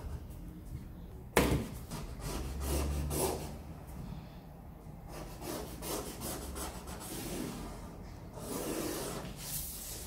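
A plastic set square and hands sliding and scraping over stiff kraft pattern paper, with a pen drawing along the square's edge. A sudden knock about a second and a half in, then uneven rubbing that swells and fades.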